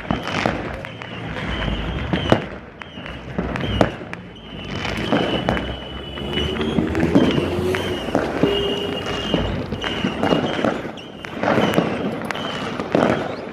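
Many fireworks and firecrackers going off across a city at once: a constant irregular clatter of distant pops and bangs, with a few sharper bangs standing out.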